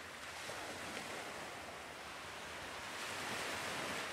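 Recorded ocean surf played back as a background track: a steady wash of waves, with one swelling louder about three seconds in.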